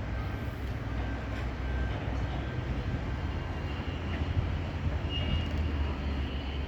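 Steady low rumble with a hiss above it, typical of outdoor urban or site ambience, with a faint high whine at times.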